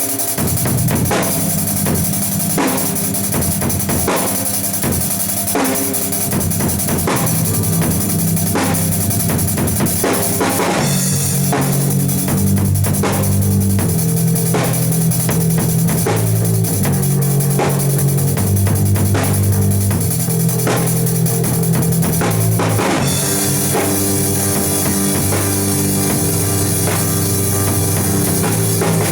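Music driven by a full drum kit playing a steady beat over a low bass line that changes notes every second or so. About 23 seconds in it grows brighter and fuller.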